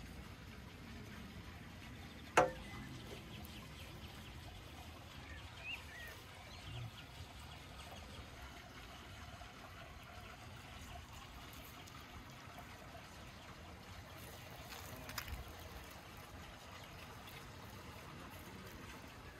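Quiet knife work: a large knife slicing open a cooked lamb stomach and cutting through the meat inside, with one sharp click about two seconds in and a few softer knocks later, over a faint steady hiss.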